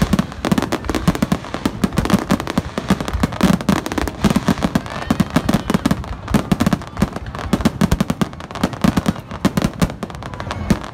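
Aerial fireworks shells bursting in a rapid barrage: many sharp bangs a second, overlapping and crackling.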